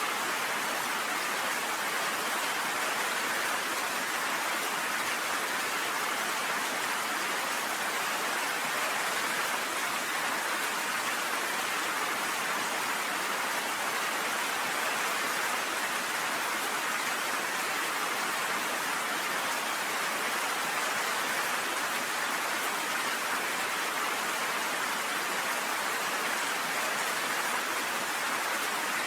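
Steady rain, an even hiss that never lets up, with no thunder or separate drops standing out.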